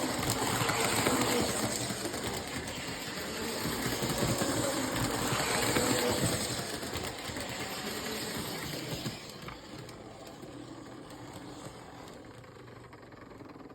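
Postwar Lionel No. 2032 FA diesel toy locomotive running on its track, its single motor buzzing steadily. It grows louder twice as it comes near and drops off about nine seconds in as it moves away.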